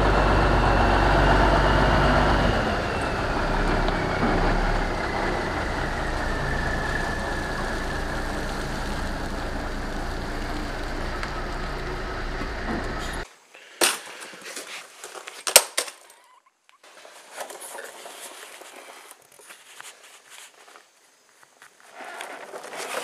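1987 International Paystar dump truck's diesel engine running as the truck is driven slowly in, with a high whine that slowly falls in pitch over the first several seconds. The engine sound cuts off suddenly about 13 seconds in. A few sharp knocks and quieter handling noises follow.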